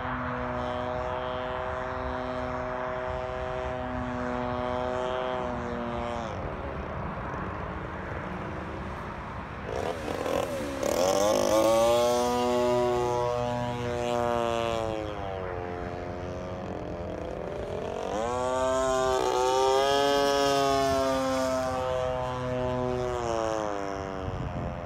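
Gas engine and propeller of an Ultra Hots RC aerobatic plane in flight. The buzz holds steady for about six seconds, eases off, then grows louder twice, about ten seconds in and again near twenty seconds, its pitch sweeping up and back down each time.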